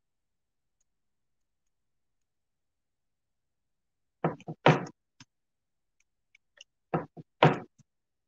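Two short clusters of knocks and taps on a wooden work surface, starting about four seconds in and again some two and a half seconds later, each a few quick taps around one loud knock.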